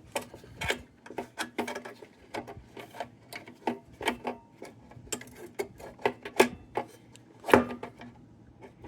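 Irregular metal clicks, taps and clinks of lantern parts being handled and fitted back together, with one louder knock about seven and a half seconds in.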